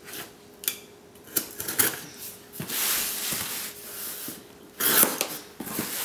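A cardboard shipping box being handled and opened with a box cutter: several sharp clicks and taps, then a longer scraping rustle about three seconds in and a loud rasp near the end.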